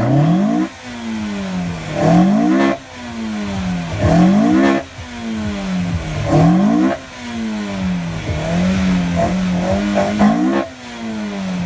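Toyota Trueno AE86 engine revved hard while standing still, its pitch climbing sharply to high revs and dropping back about five times, with a few smaller blips between the last two.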